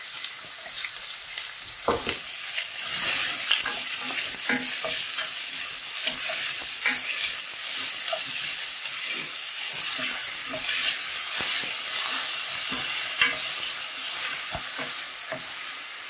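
Chopped onions and garlic sizzling in hot olive oil in a stainless steel pot, stirred with a wooden spoon that clicks and scrapes against the pan, with one sharper knock about thirteen seconds in.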